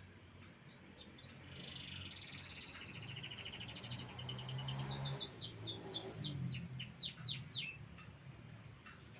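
Domestic canary singing one song phrase: rapid high trills that build up, then a run of quick down-sweeping notes, about four a second, before it stops near the end.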